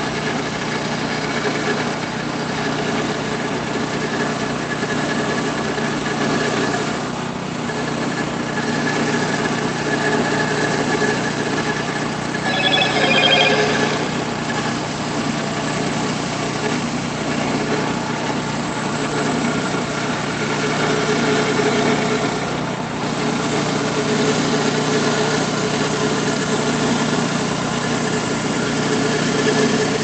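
Gas engine of a Woodland Mills HM126 bandsaw mill running steadily under load as the band blade cuts slowly through a large red oak log. A brief shrill ringing sound comes about halfway through.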